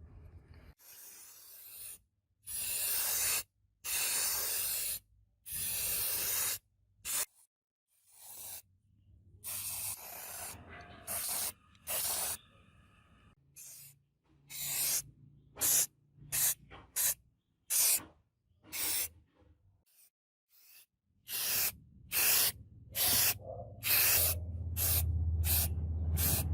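Spray hissing in a run of separate short bursts, the first few about a second long, the later ones shorter and quicker. A low hum comes in under the bursts near the end.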